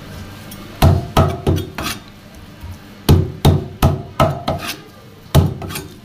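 Heavy knocks of a fish and blade striking a thick cutting block while the fish is scaled: four quick thumps about a second in, five more a moment later, then one more near the end.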